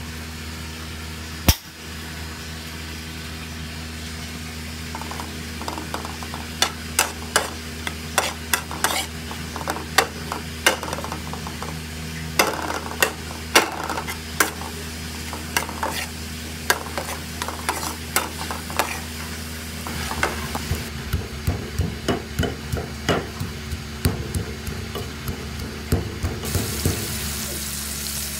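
A metal spoon scraping and clinking against a metal wok as minced garlic and belacan are stirred and sautéed, with many sharp clicks and scrapes. Near the end, a steady sizzle of curry leaves frying in oil comes in.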